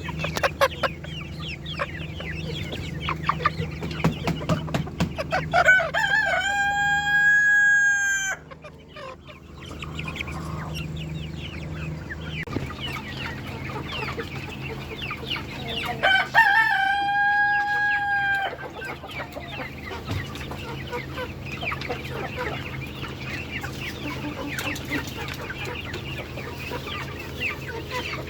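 Chickens clucking steadily, with a rooster crowing twice, each crow a long held call of about two seconds. A steady low hum runs underneath.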